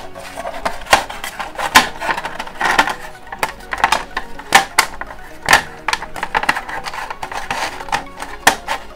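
Neckband earphones being pulled out of a card packaging tray: irregular taps, clicks and rustling scrapes of card and cable being handled.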